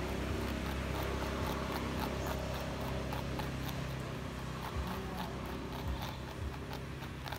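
Crested porcupine chewing cabbage leaves: quick, crisp crunching clicks, about three a second.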